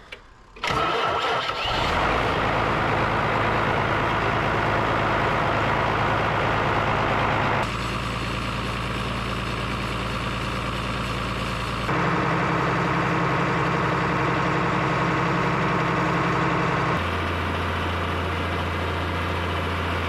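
Diesel engine of an irrigation pump unit starting about a second in, then running steadily while it pumps water up to pressure in the irrigation line; its note shifts abruptly a few times.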